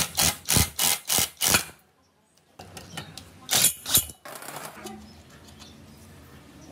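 A quick run of sharp knocks, six in about a second and a half, then after a short gap three more, giving way to quieter handling noise.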